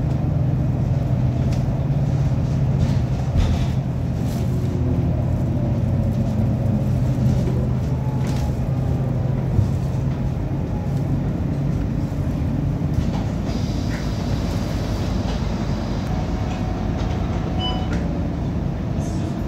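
City bus's engine and transmission running as the bus drives, heard from inside the passenger cabin: a steady low drone with a fainter whine above it and occasional rattles and clicks. The uploader says it doesn't sound right and suspects an engine or gearbox issue.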